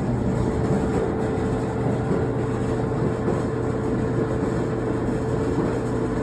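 Whirlpool gas clothes dryer running on a test start after reassembly: its motor and drum turn with a steady low hum and a constant whirring.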